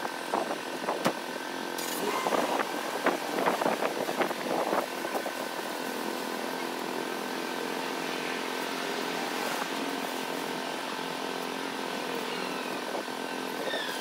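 Rustling and clicking of a small dome tent's fabric and poles being handled during the first five seconds or so, over a steady vehicle engine hum that carries on alone for the rest.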